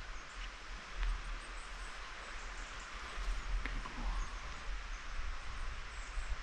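Wind through the trees and grass, a steady rustling hiss, with a low rumble of wind on the microphone that comes and goes.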